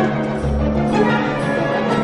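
Symphony orchestra playing, with a low note held steadily beneath shifting upper parts and a brief deep rumble about half a second in.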